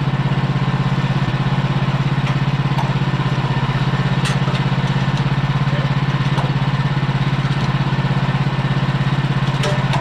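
A small portable sawmill engine idling: a steady low hum with a fast, even pulse. A few faint sharp clicks sound over it.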